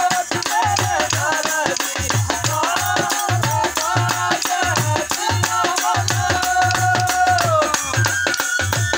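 Live Dogri folk music: a drum beating a steady repeating rhythm, a rattling percussion, and a gliding, ornamented melody line above them.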